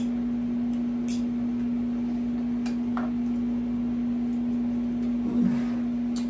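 Scattered soft clicks and smacks of someone eating, over a steady low hum that is the loudest thing throughout.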